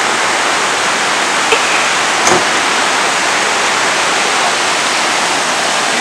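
Mountain river rushing over boulders in white-water rapids, a steady loud roar of water.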